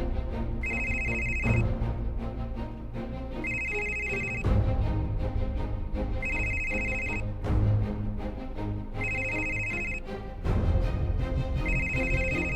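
A mobile phone ringing: a high electronic ring tone about a second long, repeated five times roughly every three seconds, over background music with deep low notes.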